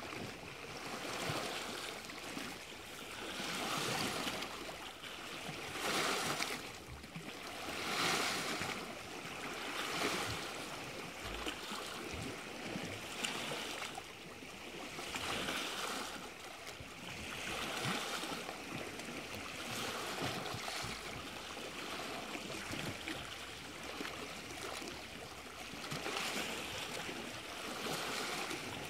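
Small Lake Superior waves washing and lapping, a soft rushing that swells and falls back every couple of seconds.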